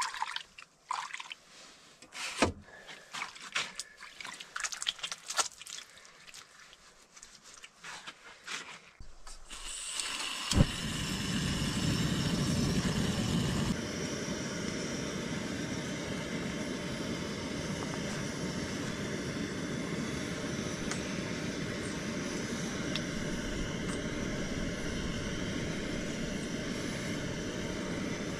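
Light clinks and handling of cookware, then about ten seconds in a sharp click and a camp stove's gas burner is lit and runs with a steady hiss. It is turned down a little a few seconds later.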